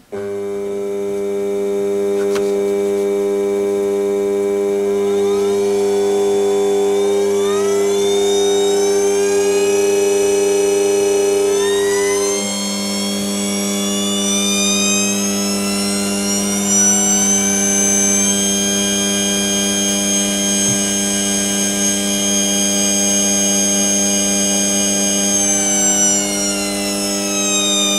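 A 200 W DC treadmill motor on a DLM speed controller starts with a steady electrical buzz. Its whine rises in pitch as the speed knob is turned up in two stages, holds steady at high speed, then drops near the end as it is turned back down.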